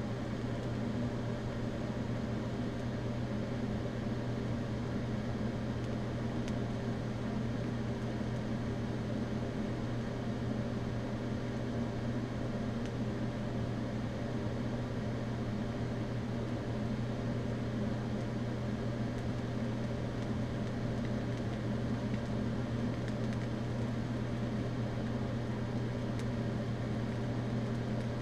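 Eastwood TIG 200 welder running a DC TIG arc at 60 amps on stainless steel sheet: a steady electrical hum with a hiss over it while the seam is welded out.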